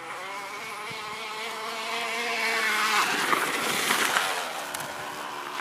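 Plastic bottle held against a bicycle's spokes buzzing like a small motorbike engine as the bike is ridden, its pitch wavering with the wheel's speed. About halfway through it gets louder and turns into a rougher rattle with a few knocks.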